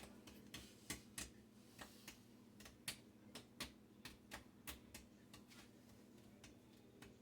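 Faint, irregular snips of scissors cutting the excess lace of a lace front wig, one or two clicks a second.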